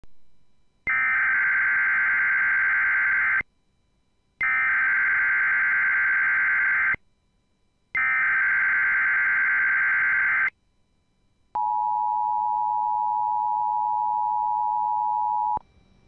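Emergency Alert System SAME header: three bursts of digital data tones, each about two and a half seconds long with a second's pause between them. Then comes the steady two-tone EAS attention signal for about four seconds, which marks the start of an alert activation.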